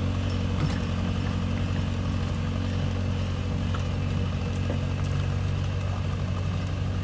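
Kobelco excavator's diesel engine running steadily, a low, even drone.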